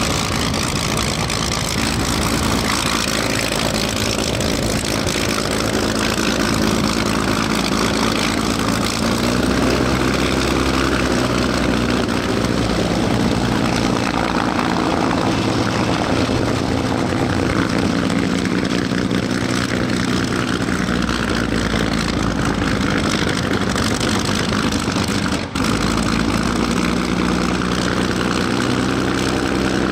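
Messerschmitt Bf 109's V12 piston engine running at low power with its propeller turning, a steady heavy drone whose pitch shifts a few times, broken for a moment near the end.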